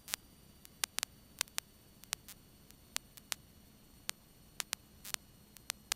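Faint, irregular clicks and crackles of radio static on the aircraft's radio and intercom audio, about three a second, over a quiet hiss with no engine sound.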